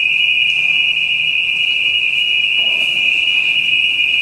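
Fire alarm sounder going off with a loud, steady, high-pitched continuous tone.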